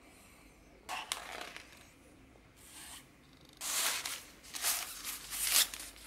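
Paper inserts and cardboard box packaging rustling and scraping in several short bursts while a keyboard is unboxed, the loudest bursts about four and five and a half seconds in.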